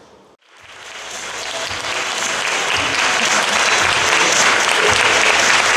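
Audience applauding: clapping fades in after a short gap about half a second in, builds over the next second or two, then holds steady.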